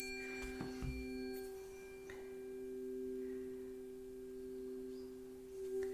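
A pair of tuning forks tuned a perfect fifth apart, ringing together as two steady pure tones. A bright metallic ping from the strike fades in the first second or so, the sound swells and ebbs slowly, and it brightens again near the end as a fork is struck anew.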